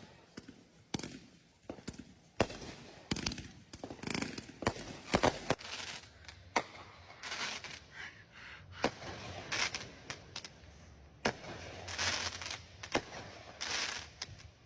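Fireworks going off in an irregular run of sharp bangs and booms, several of them followed by a longer crackling spell.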